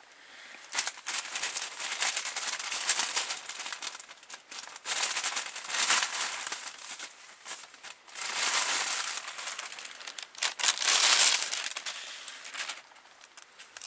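Packaging crinkling and rustling as it is handled and opened, in several bursts of a second or more.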